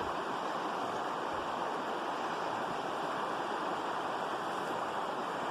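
Steady rushing of moving water, an even noise with no separate splashes or tones.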